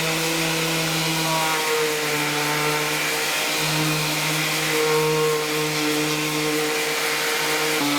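Electric power sander running steadily on cured fairing compound, its motor hum shifting slightly in pitch a few times as it is worked over the surface.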